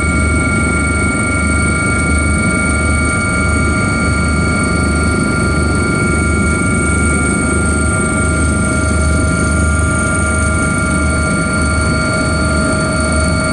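Helicopter cabin noise on approach to land: the main rotor's steady rhythmic low throb under a dense rumble, with several constant high whines from the turbine engines and gearbox.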